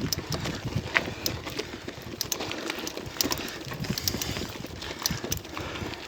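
Bicycle climbing a dirt forest track: tyres crunching over gravel, with scattered sharp clicks and rattles.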